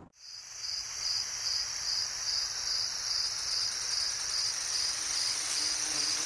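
Crickets chirping in a steady high trill, evenly pulsed about three times a second.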